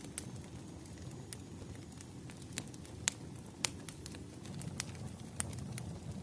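Wood fire crackling, with irregular sharp pops over a steady low rumble; the two loudest pops come about three seconds in and just after.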